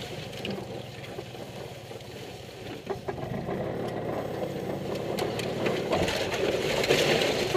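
A car's engine running slowly, heard from inside the cabin as it creeps down a steep, rough track, with a few short knocks from the car jolting over the ground.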